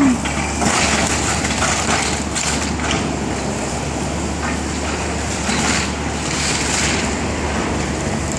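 Komatsu hydraulic excavator's diesel engine running steadily under load while its arm tears into a wrecked building, with repeated crunching and cracking of wood and debris, several crunches in the first three seconds and a couple more later.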